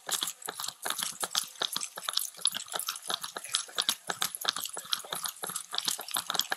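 Footsteps crunching on gravel, a quick irregular run of crunches.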